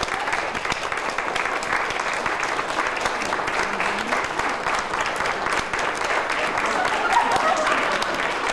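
Audience applauding steadily with dense, even clapping; a violin begins to play faintly under the applause near the end.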